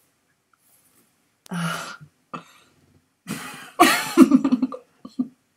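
A person laughing hard in breathy, cough-like bursts: one short burst about a second and a half in, then a longer fit about three seconds in that breaks into a quick run of pulses.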